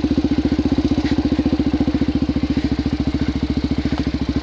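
Suzuki DRZ400SM's single-cylinder four-stroke engine running steadily at low revs, an even thumping pulse, through an exhaust fitted with a silencer insert and spark arrestor.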